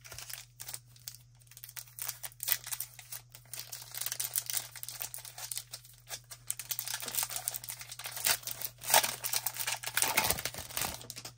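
Foil trading-card pack wrapper being crinkled and torn open by hand, a dense irregular crackling that is loudest near the end, over a steady low electrical hum.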